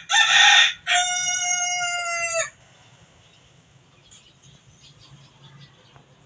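Rooster crowing once: a short harsh opening, then a long held note that drops slightly as it ends, the whole crow lasting about two and a half seconds.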